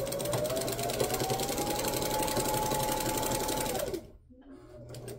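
Electric sewing machine stitching a seam at speed. The motor's whine rises as it speeds up, holds steady with the rapid ticking of the needle, then winds down and stops about four seconds in.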